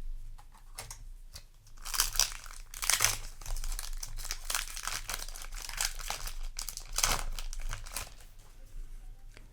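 Yu-Gi-Oh! booster pack's foil wrapper being torn open and crinkled in the hands: irregular rustling and tearing that starts about two seconds in, with the loudest bursts around two, three and seven seconds.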